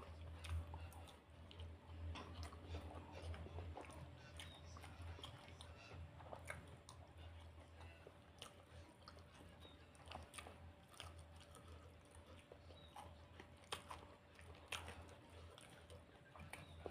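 Faint chewing and mouth sounds of people eating, with scattered small crunches and clicks, over a low steady hum.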